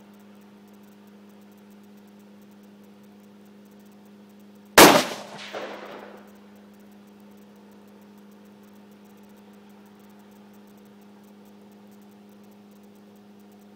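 A single shot from an AR-15 rifle in .223 about five seconds in, followed under a second later by its echo. A steady low hum runs underneath.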